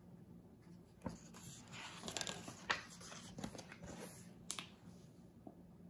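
Faint rustling and a few small clicks as the pages of a paperback picture book are handled and turned.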